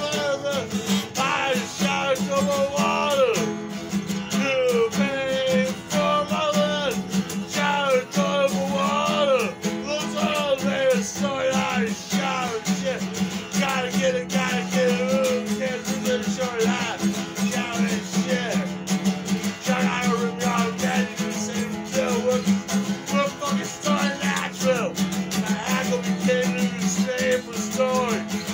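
A man singing a song while strumming chords on an acoustic guitar.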